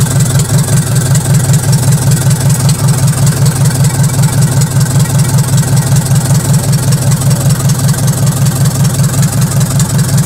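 Nissan FD35 four-cylinder diesel engine, a freshly overhauled bare engine on a stand, idling steadily with a regular pulsing beat.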